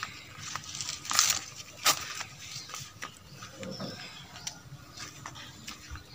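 Footsteps crunching on dry fallen leaves, with foliage rustling, as a series of irregular crackles; two louder crunches come about one and two seconds in.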